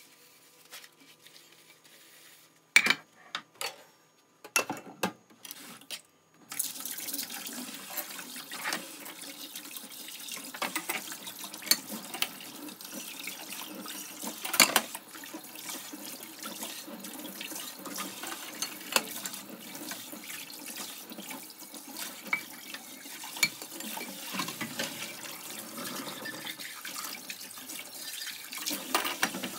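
Kitchen tap water running into a stainless steel sink while dishes are rinsed, with scattered clinks of crockery. For the first six seconds the tap is off and there are only a few knocks of dishes being handled, then the water comes on.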